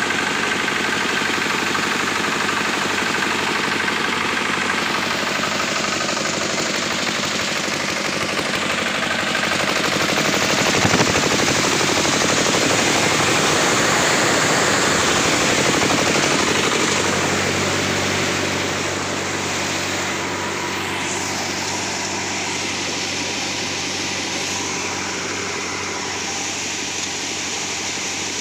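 Prakash stationary diesel oil engine running a sorghum thresher, a steady fast-pulsing chug mixed with the thresher's whirring drum. It grows louder for several seconds in the middle, with one brief sharp knock partway through.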